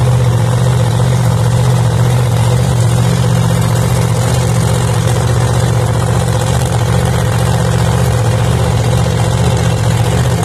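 Drag-racing funny car's engine idling steadily and loud on the line, a low, even rumble with no revving.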